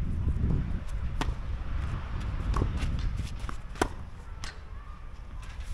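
Tennis ball knocks on a hard court: sharp racket strikes and bounces about a second apart, with players' footsteps and shoe scuffs.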